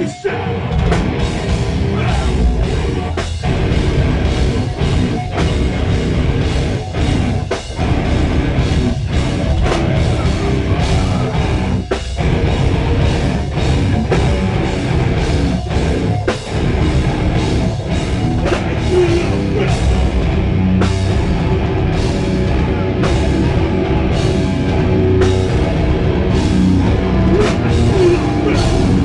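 Live hardcore band playing loud and fast: distorted electric guitars and bass over a pounding drum kit with a steady beat.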